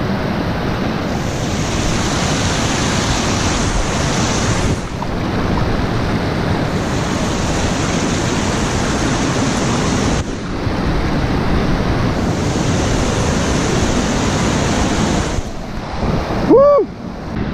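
The Una river rushing over a travertine waterfall: a loud, steady rush of whitewater, broken by a few abrupt cuts. Near the end a short tone rises and falls once.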